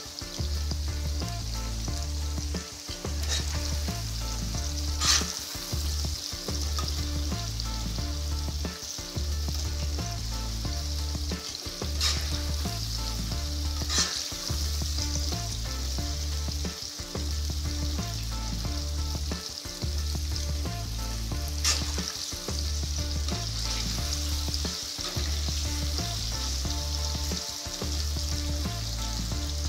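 Chopped vegetables frying in hot oil in a wok, sizzling steadily as a metal spatula turns them. A handful of sharp clicks come from the spatula striking the pan. A low hum runs underneath, breaking off every second or two.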